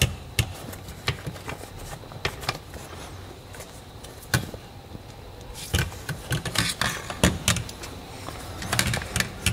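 A leather parking brake boot being worked by hand over a plastic handbrake handle: scattered clicks and rustling of leather and plastic, becoming a dense run of crackly rustling and clicking from about halfway through.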